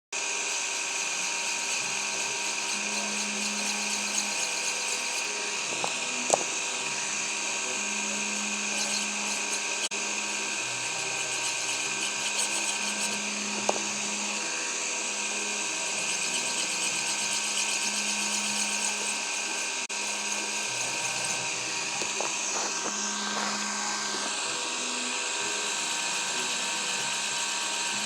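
A small electric power tool's motor running steadily with a high whine, with a lower hum that comes and goes every second or two and a couple of sharp clicks.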